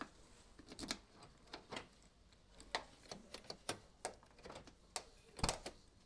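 A string of sharp, irregular clicks and clacks from a car door's lock and latch, worked with a key in the lock cylinder, with one heavier clack near the end. It is the test of a newly fitted door latch and central-lock unit.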